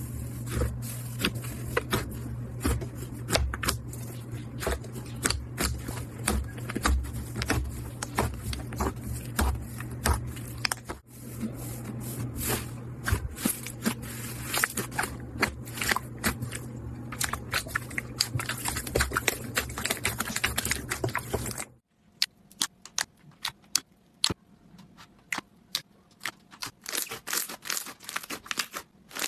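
Slime being squeezed and pressed by hand, making many small crackling clicks and pops over a steady low hum. About 22 seconds in it cuts to a quieter clip with sparser clicks.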